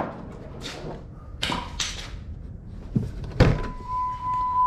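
A few scuffs and a thump, then a sharp knock as the Jeep Wrangler's driver door is opened. Right after it, a steady electronic tone starts and holds.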